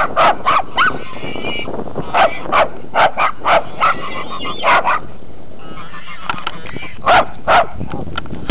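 Morkies (small Maltese–Yorkshire terrier crosses) barking at a pair of geese: rapid short, high-pitched yaps in quick runs. There is a pause of about two seconds just after the middle, then two more yaps near the end.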